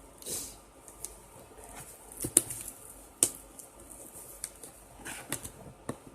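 Packing tape being picked at and torn on a sealed cardboard box: scratching and rustling with a scattering of sharp snaps, the loudest two a little under a second apart near the middle.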